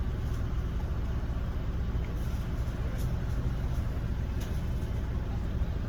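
Car engine idling, a steady low rumble heard from inside the cabin, with a few faint ticks.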